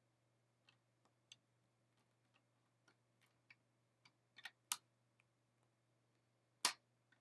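Faint, irregular clicks from someone using a desk computer, scattered a fraction of a second to a second apart, with two louder clicks about four and a half and six and a half seconds in.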